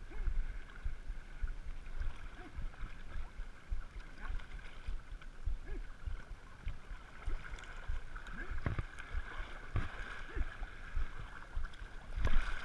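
River water lapping and sloshing at the waterline right at the microphone, with irregular low thumps and small gurgles.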